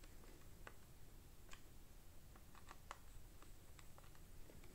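Faint, irregular clicks of a screwdriver tightening the small screws of a multimeter's plastic battery cover, the screws biting into metal threaded inserts set in the housing.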